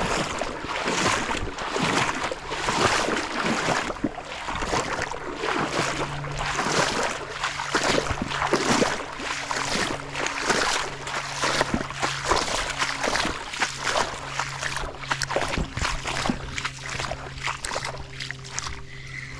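Creek water running and splashing close by. A faint steady low hum joins in about six seconds in.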